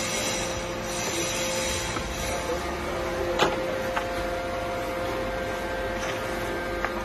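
Steady factory machinery hum with a constant tone, broken by a couple of sharp clacks a little past three and four seconds in as a sand-and-plastic roof tile is set onto a stack of tiles.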